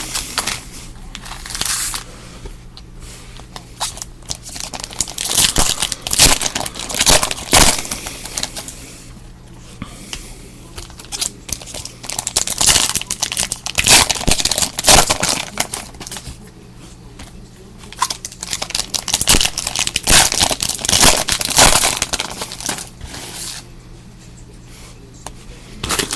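Trading-card pack wrappers being torn open and crinkled by hand, in repeated bursts of tearing and rustling with short pauses between. A faint steady low hum sits underneath.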